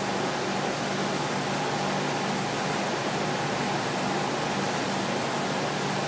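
Gray CNC vertical boring mill running: a steady hiss with a low hum underneath.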